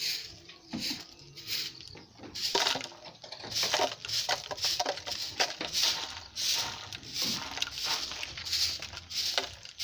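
Short-handled grass broom sweeping bare dirt: quick scratchy swishes, about two strokes a second.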